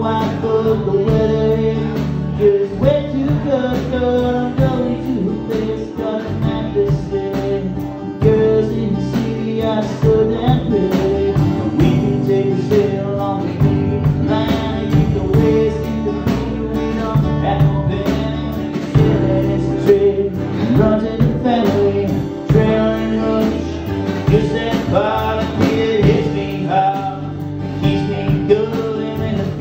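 A man singing with his own strummed acoustic guitar accompaniment.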